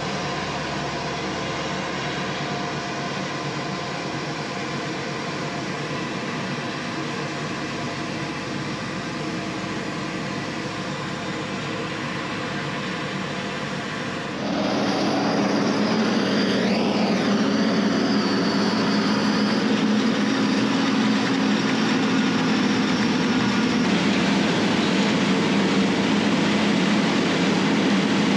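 Diesel engines of a self-propelled forage harvester and a silage truck running steadily as the harvester chops corn and blows it into the truck box. About halfway through the sound steps up louder, with chopped corn streaming into the box.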